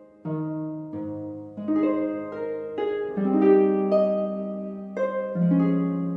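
Background instrumental music: plucked notes and chords, each starting sharply about once a second and ringing out as it fades.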